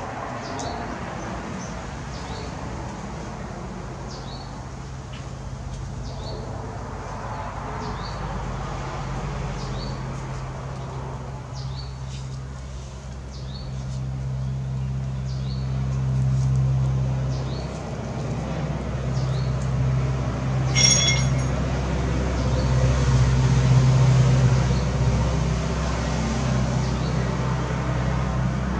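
A low motor hum that shifts in pitch and grows louder in the second half, with a short high chirp repeating about once a second and a brief louder high call about two-thirds of the way through.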